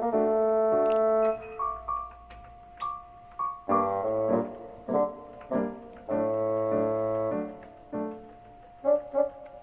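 Background music led by a piano or keyboard: chords and short notes in a light, bouncy rhythm.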